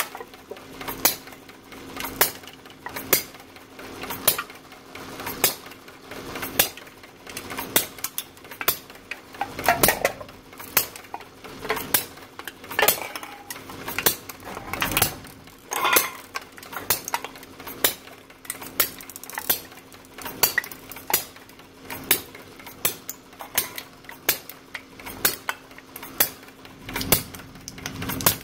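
Homemade miniature four-cycle hit-and-miss engine running a can crusher: sharp metallic clicking about twice a second over a steady hum. Aluminium cans are crunched flat in the crusher around the middle.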